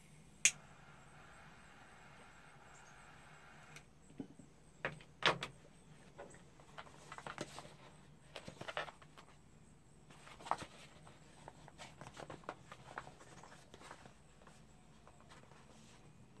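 A butane jet torch lighter clicks alight and its flame hisses faintly for about three seconds while a tobacco pipe is lit. Then a cardboard box is handled and opened with a knife: scattered knocks, scrapes and rustles, the loudest a knock about five seconds in.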